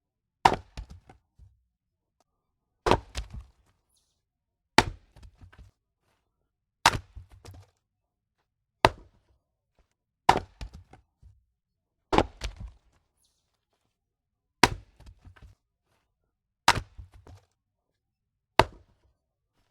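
Axe splitting firewood logs: ten sharp strikes about two seconds apart, each followed by a brief scatter of smaller cracks and knocks.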